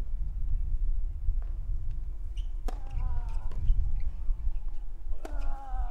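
Tennis rally on a clay court: a tennis ball struck by rackets several times, the two loudest hits, about two and a half seconds apart, each met by a player's falling grunt, over a steady low rumble.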